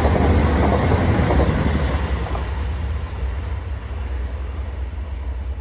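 Passenger train running past, a loud rumble and rush of wheel noise that slowly fades as it moves away.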